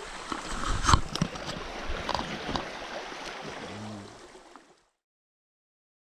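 A small creek running over rocks, with a few sharp knocks, the loudest about a second in. The sound then fades out to silence a little before five seconds.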